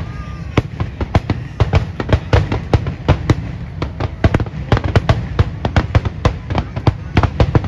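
Aerial fireworks shells bursting in a rapid barrage: sharp bangs, several a second, over a continuous low rumble.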